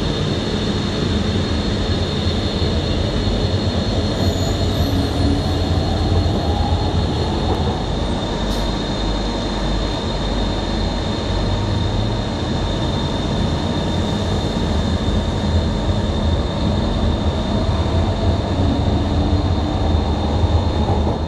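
Istanbul M1 light-metro train running through an underground station, heard from aboard: steady rumble and wheel noise with a constant high whine, and a motor tone that rises in pitch twice.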